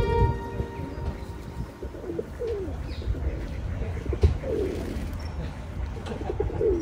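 Feral pigeons cooing: a few short, low, falling coos about two seconds apart, over a steady low background rumble.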